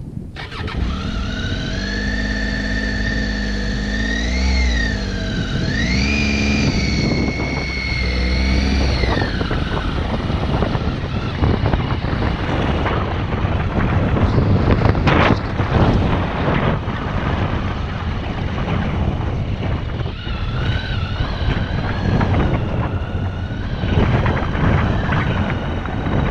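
Triumph Tiger XC motorcycle's three-cylinder engine running under way on a dirt track. The revs rise and fall twice in the first several seconds. Then wind noise and scattered knocks largely cover the engine for a while, before its note comes back steadier near the end.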